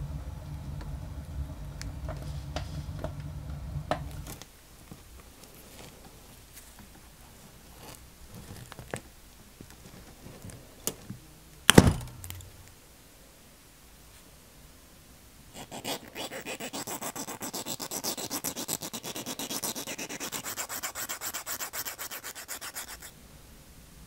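Hand work on metal lure parts and steel wire: small metal clicks over a low hum that stops about four seconds in, one sharp snap near the middle, then about seven seconds of fast, even scraping.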